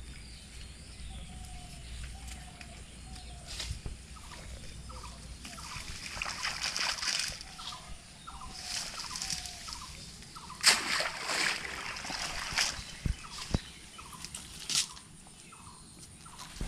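Wet cast net being hauled out of a pond: water sloshing and dripping off the mesh, with several sudden splashes, the loudest about two-thirds of the way through. A bird calls behind in short repeated notes.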